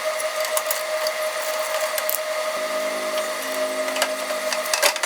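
Electric drill running a bit down through a hole in a welded metal bracket: a steady motor whine with scraping crackle from the bit cutting.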